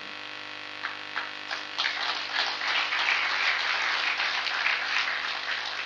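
Audience applauding: a few scattered claps, then a spread of clapping that builds from about two seconds in and dies away near the end.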